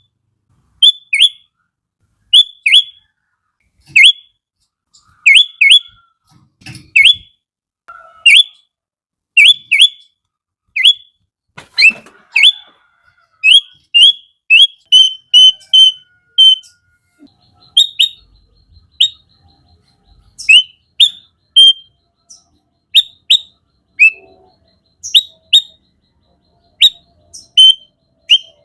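Sooty-headed bulbul (kutilang) singing: a string of short, sharp whistled notes, each sweeping quickly down in pitch, given singly or in quick pairs about once a second.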